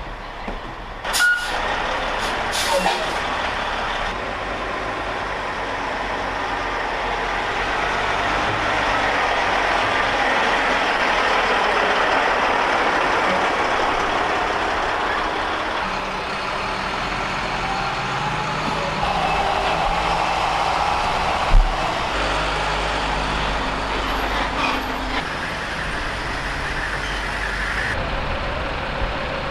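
Heavy military trucks running and moving off in a convoy, with a steady engine and road noise. Short, sharp air-brake hisses come about a second and about three seconds in, and there is a single thump later on.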